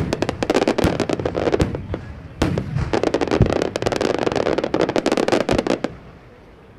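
Aerial firework shells bursting in rapid succession, a dense run of sharp bangs and crackle. There is a short lull about two seconds in, then a loud bang and another dense run, before the bursts die away near the end.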